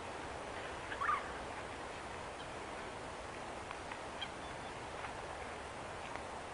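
A large flock of starlings keeps up a dense, steady chatter, with scattered short bird calls over it and one louder call about a second in.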